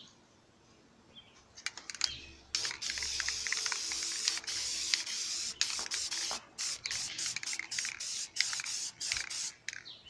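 Aerosol spray paint can spraying: after a few clicks, one long hiss of about four seconds, then a run of short bursts.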